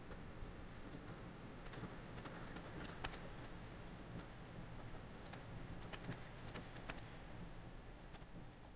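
Faint, irregular clicks and taps at a computer, bunched in two short runs, over a low steady hum.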